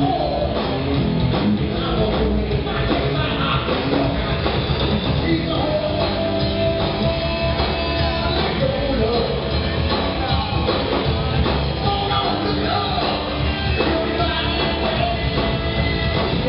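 Live rock band playing: electric guitars and a drum kit with a singer's vocals, loud and continuous.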